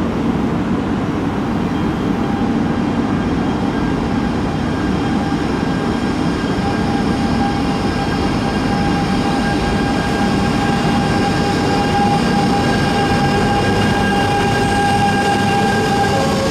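JR East E926 East-i Shinkansen inspection train pulling away from the platform: a steady rumble from the standing train, joined about six or seven seconds in by a steady electric whine from its traction equipment. The whine begins to rise in pitch right at the end as the train gathers speed.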